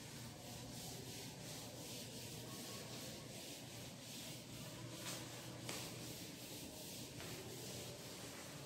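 Blackboard duster wiping chalk off a chalkboard: a faint scrubbing that swells and fades with each back-and-forth stroke. Two light knocks come a little past halfway.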